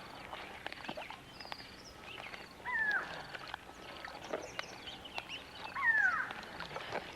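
Newly hatched crocodiles calling: two falling chirps about three seconds apart, over faint high twittering and light clicks.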